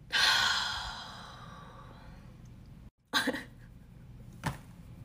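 A woman's long, breathy sigh that fades over about a second and a half, followed by two short breath sounds a little later.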